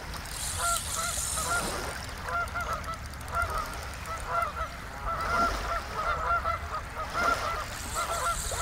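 A flock of geese honking: many short calls, repeated and overlapping, running steadily.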